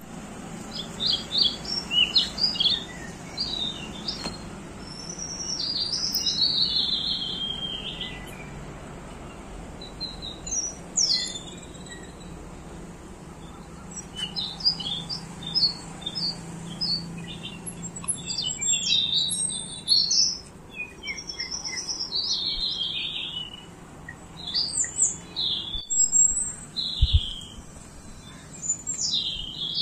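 Small birds chirping and twittering in quick bursts of short calls, over a low steady background hum.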